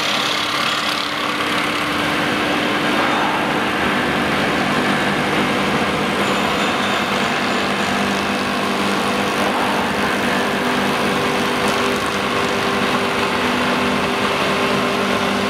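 Log-profiling woodworking machine running steadily, its electric motor humming as rotary cutter heads mill a round log, giving a continuous machine noise with a few steady hum tones.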